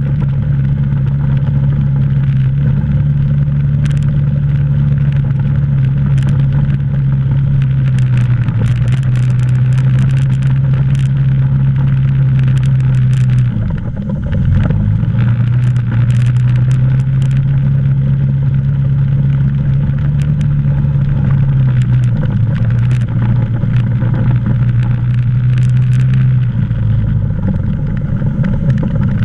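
ATV engine running steadily under way on a dirt trail. About halfway through, the engine note drops and the level dips briefly, then both pick back up. Scattered faint clicks ride over it.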